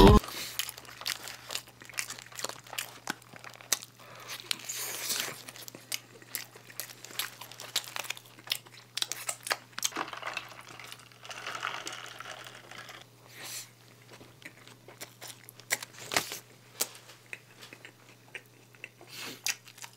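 Close-miked eating: a paper burger wrapper crinkling, with chewing and crunching of a McDonald's burger and fries. About halfway through, cola is poured from a plastic bottle into a paper cup, fizzing for a couple of seconds.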